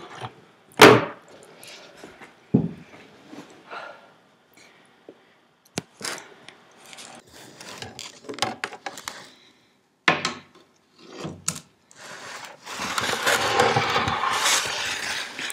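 Scattered knocks and scrapes with stretches of rubbing and rustling as things are handled close by: a sharp knock about a second in, a few more later, and a longer rustling stretch near the end.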